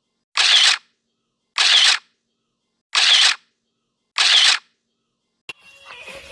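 Camera shutter sound effect, repeated four times about one and a quarter seconds apart, with dead silence between the clicks. Near the end, music with singing starts.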